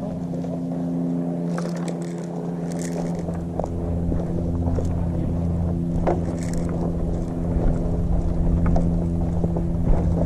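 An engine running steadily at a constant pitch, with a few scattered clicks and knocks.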